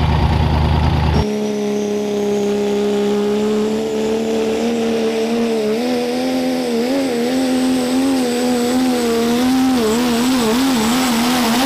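Diesel pulling truck's engine at full throttle under load: a steady pitched note that starts wavering up and down after a few seconds, over a thin high turbo whistle that slowly rises. It follows a deep engine rumble that cuts off abruptly about a second in.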